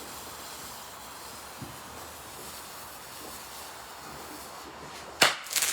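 A faint steady hiss, then about five seconds in a single very loud firework bang that echoes briefly. The firework gives only one report.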